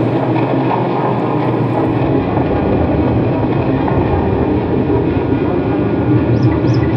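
Dense, steady electronic drone from a modular synthesizer patch, a rumbling noise wash with faint held tones. Near the end, short high chirps start repeating a few times a second.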